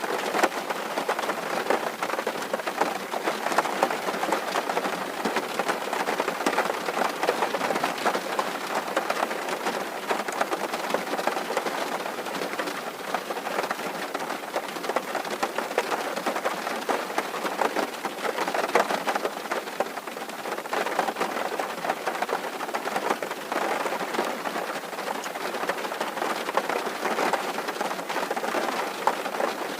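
Steady rain drumming on a tin roof, a dense patter of countless drops hitting the metal sheet.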